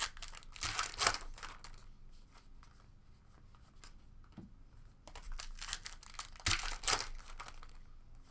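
A foil trading-card pack wrapper crinkling and tearing as the pack is opened and the cards are handled. The sounds come in two bunches, around a second in and again from about five to seven seconds.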